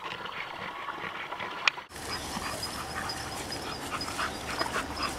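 A dog panting steadily, with a single sharp click a little under two seconds in.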